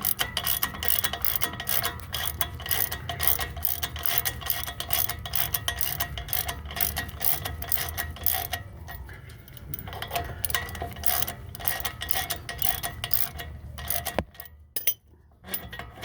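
Hand socket ratchet clicking rapidly as it backs out a brake caliper bracket bolt, a long steady run of pawl clicks that stops about fourteen seconds in.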